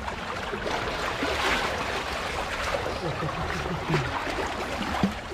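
Shallow seawater sloshing and splashing around hands working a cast net, loudest about a second in.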